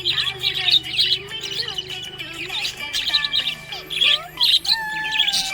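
Budgie chattering in many quick, bright chirps, several a second, mixed with warbling glides.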